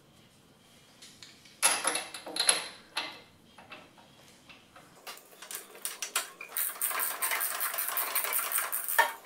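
Scraping and metal clinks, then from about five seconds in a fast, even run of ratchet clicks as a spark plug is unscrewed with a socket wrench.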